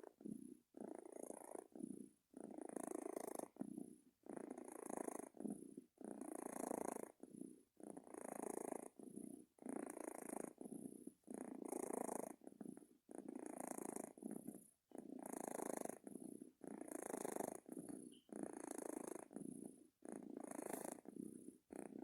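Sleeping cat purring with a rattly, snore-like rasp on each breath, in and out, about one breath every two seconds with short gaps between.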